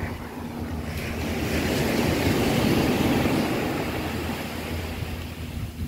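Surf on a beach: a small wave breaking and washing up the sand, swelling about a second in, loudest around the middle, then fading away.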